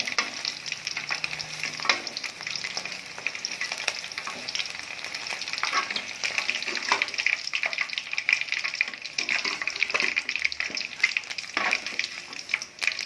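Batter-coated chicken pieces deep-frying in hot oil, a steady crackling sizzle, at the half-fried first stage of a double fry. A few knocks and scrapes of a utensil in the pan break through it.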